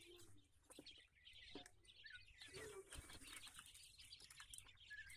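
Twelve-day-old Japanese quail chicks peeping faintly in short chirps, with scattered small clicks and rustles as they scurry about on grit litter.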